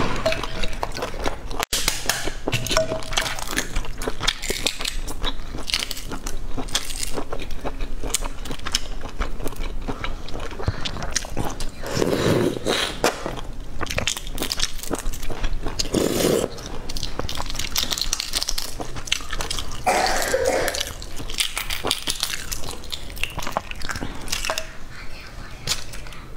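Shells of boiled eggs being cracked and peeled by hand, giving many small crackling clicks, mixed with close-up chewing and a few louder crunchy bites.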